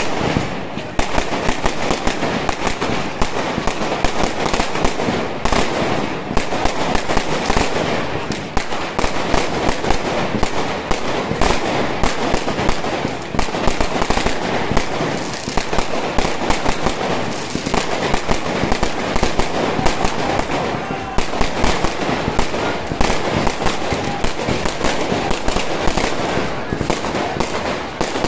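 Aerial fireworks and firecrackers bursting in a dense, unbroken barrage: many sharp bangs and crackles overlapping, several every second, with no pause.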